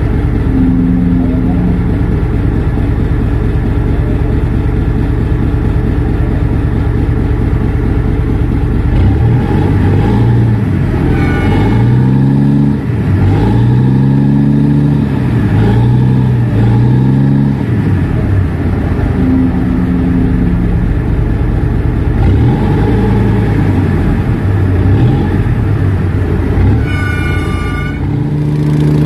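Boat engine running with a low rumble, its revs rising and falling again and again through the middle as the barge is manoeuvred. A short high tone sounds near the end.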